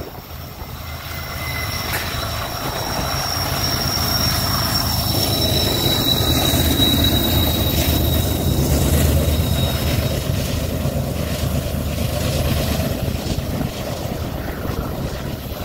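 BNSF diesel helper locomotives shoving at the rear of a stack train as it climbs the grade past close by: a deep, steady engine rumble that builds to its loudest about seven to nine seconds in, then eases off. A thin high squeal runs through the first half.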